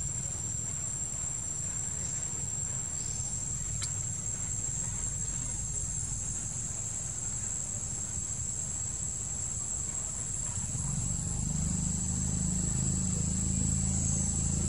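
Insects droning in a steady high pitch, over a low rumble that grows louder near the end.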